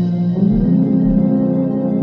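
Background music of held chords that move to a new chord about half a second in.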